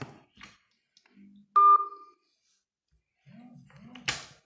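A single short electronic telephone beep about a second and a half in, fading quickly: the tone of the phone call being ended. A few soft clicks and a faint low murmur come near the end.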